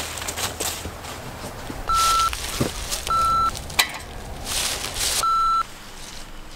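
Three short electronic beeps at one steady pitch, each about half a second and unevenly spaced, from a tractor's warning beeper, with a rushing noise between them.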